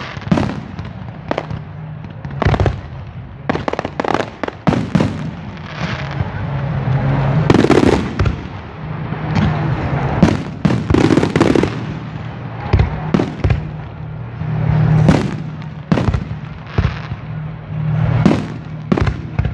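Fireworks display: a rapid, irregular run of bangs and cracks from exploding shells, some ringing on briefly, over a steady low hum.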